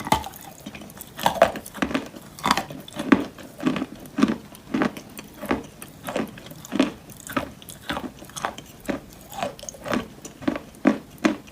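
Close-up chewing of wet chalk mixed with clay paste: steady, rhythmic crunchy chews, about two a second.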